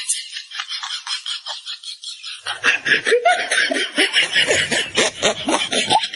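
Laughter in quick, rhythmic pulses, growing louder and fuller about two and a half seconds in.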